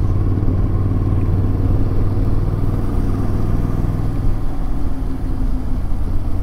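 Motorcycle engine running at a steady cruise while riding, under a steady rush of air and road noise. The engine note eases slightly about four seconds in.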